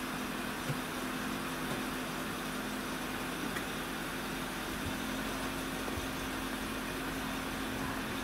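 An engine idling steadily: an even low hum with a couple of held tones and no change in pitch.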